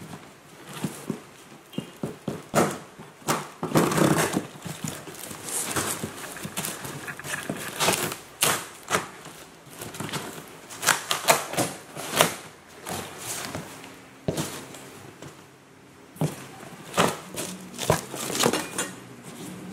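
A cardboard shipping box being opened. Scissors cut through the packing tape, and the cardboard flaps are pulled back and lifted, in irregular crackles, scrapes and knocks.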